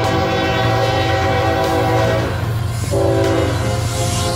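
Air horn of a BNSF diesel freight locomotive sounding a multi-note chord as the train approaches. One blast breaks off about two seconds in and a shorter one follows about a second later. The locomotive's diesel engine rumbles steadily underneath.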